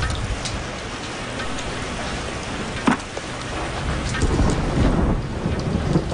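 Heavy rain falling steadily, with thunder rumbling low and growing louder in the second half, and a single sharp click about three seconds in.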